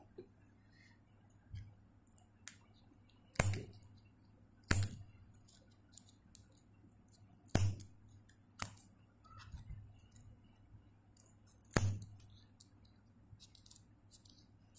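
Scissors cutting the edge of a small LED circuit board: about five sharp snips spaced a second or more apart, with faint handling clicks between.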